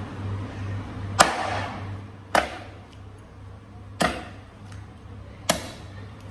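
Meat cleaver chopping through pig's trotters on a wooden chopping board: four heavy blows, a second or more apart, the first the loudest.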